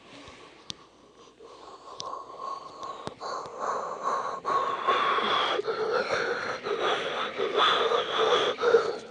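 Battery-powered toy train running on plastic track: a steady motor whine with scattered clicks, growing louder as the train approaches and passes close by, then cutting off suddenly at the end.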